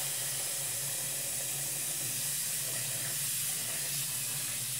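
Kitchen faucet running a steady stream of water into a stainless steel bowl of apples, filling it.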